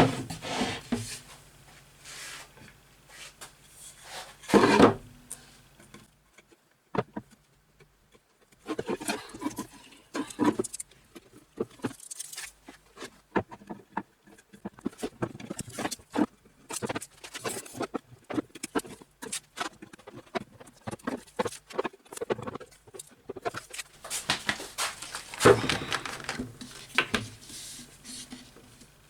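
Hand work on a lathe's wooden sanding disc: irregular scraping, rubbing and light tapping, in clusters with a short lull about seven seconds in.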